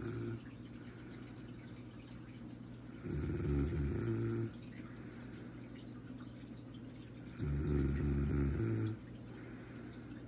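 Snoring at a slow, even pace: one snore about three seconds in and another about seven and a half seconds in, each lasting about a second and a half, over a steady low hum.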